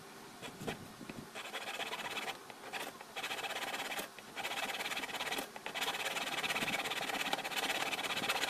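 A bare hacksaw blade, held in the hand without a frame, sawing back and forth through the wall of a plastic water jug: a rasping in runs of quick strokes broken by short pauses.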